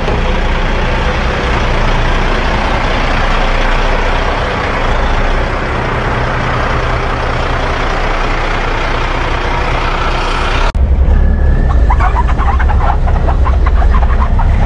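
Diesel semi-truck engines running steadily. About eleven seconds in, the sound cuts abruptly to a louder, deeper diesel rumble heard up close, with rapid irregular clatter on top.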